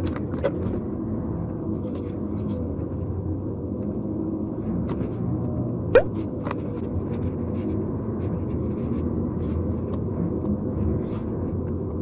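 Car driving, heard from inside the cabin: a steady low rumble of tyres and engine on a narrow country road. About halfway through there is a single sharp knock.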